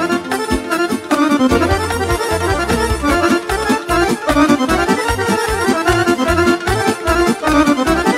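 Roland digital accordion playing a melody of quick, changing notes over electronic keyboard accompaniment with a steady bass beat.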